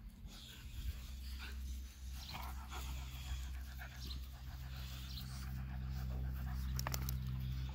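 Young boxer dogs panting as they play-wrestle, over a steady low hum.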